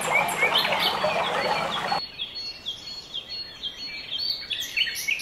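Small birds chirping in many quick, repeated notes. A dense chorus over a noisy background cuts off abruptly about two seconds in, leaving sparser, clearer chirps.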